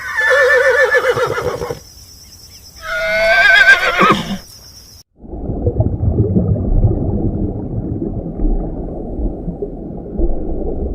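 Horse whinnying twice, each a wavering call of about a second and a half, the second higher than the first. About five seconds in, several seconds of low rumbling noise follow.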